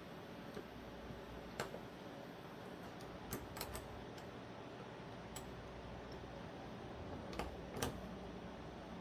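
Scattered light clicks and taps of small metal folding-knife parts and tools being handled during reassembly, about seven in all, with a quick cluster of three in the middle, over a steady hiss.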